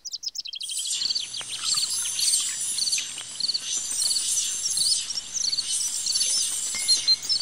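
Small birds chirping: short high calls repeated in quick runs, over a steady background hiss.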